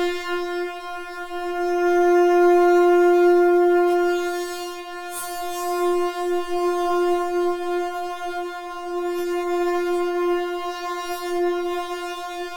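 A synthesizer holding one steady, buzzy note rich in overtones. Its loudness wavers throughout and swells for a couple of seconds early on, with a few faint clicks along the way.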